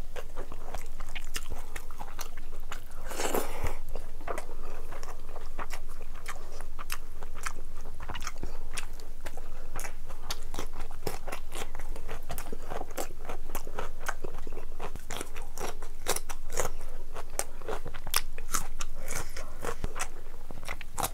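A person chewing a mouthful of curry and rice eaten by hand, with a dense run of small wet mouth clicks and smacks.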